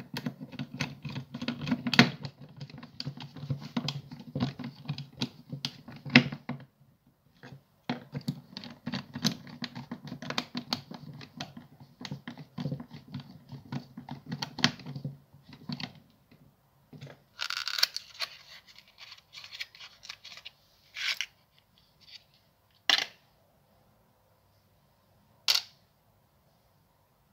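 Screwdriver turning screws out of a Makita impact driver's plastic housing: rapid clicking and grinding in two runs, the second stopping about fifteen seconds in. After that come a few separate clicks and rattles of small metal parts being handled.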